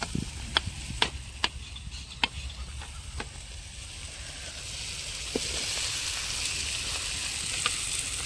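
A metal spoon clinking and scraping against a steel kadai as cooked chicken masala is scooped out, with scattered sharp clinks. Under it is a steady sizzling hiss from the hot pan that grows louder about halfway through.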